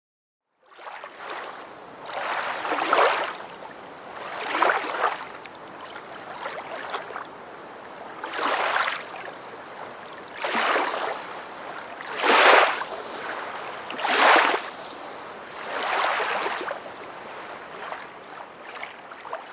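Water splashing and washing in surges about every two seconds, like small waves, starting suddenly just under a second in.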